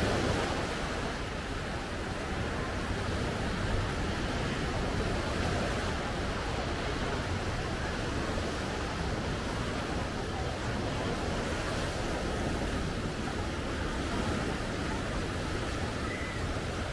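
Small sea waves washing onto a sandy beach: a steady, unbroken rush of surf, with some wind on the microphone.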